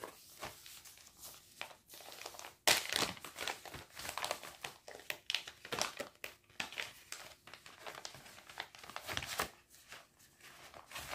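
Cross-stitch kit packaging crinkling in the hands as it is unwrapped, in irregular crackles that grow busy about three seconds in and thin out near the end.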